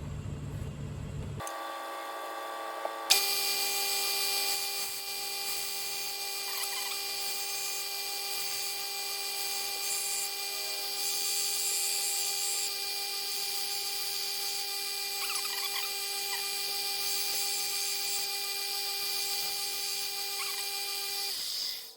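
Belt sander motor starting up and running with a steady whine, while a dull 1-inch skew chisel is held lightly against the belt to grind a new edge on its bevel. It shuts off suddenly near the end.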